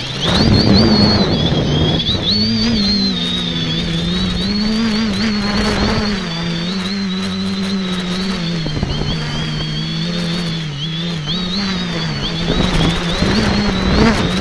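X550AIOP multicopter's electric motors and propellers heard from its onboard keychain camera: a steady buzz with a thin high whine, both wavering up and down in pitch as the throttle changes, over low wind buffeting on the microphone.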